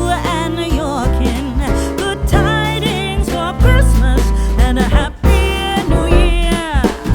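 Music: a song with a sung, wavering melody over drums and a bass line, with a brief break about five seconds in.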